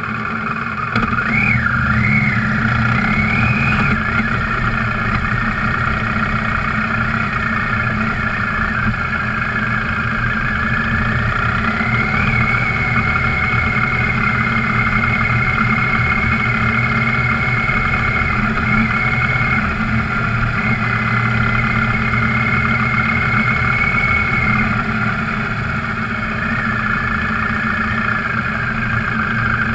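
Off-road vehicle's engine running while driving, its pitch rising and falling a few times in the first few seconds, then holding fairly steady.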